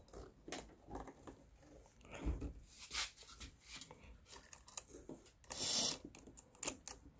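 Scattered light clicks, knocks and scrapes of a Kobalt chainsaw's bar and chain being handled and fitted while the chain is tensioned, with a longer rustling scrape about five and a half seconds in.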